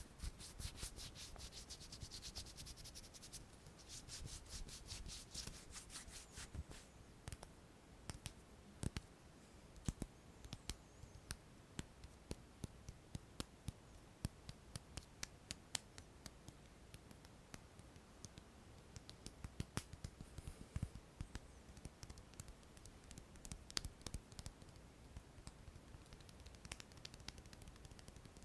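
Hands rubbing and scratching close to the microphone in quick strokes, giving way after about six seconds to scattered light taps and clicks.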